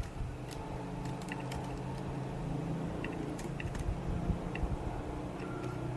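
Faint, scattered clicks of a computer keyboard and mouse over a low, steady room hum.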